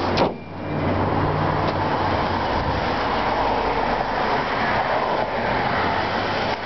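A car hood slams shut once, about a quarter second in, then the 2004 Toyota Highlander's 16-valve 2.4-litre four-cylinder engine idles steadily.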